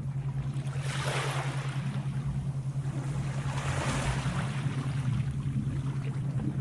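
Sea waves washing in, swelling about a second in and again around four seconds, over a steady low hum.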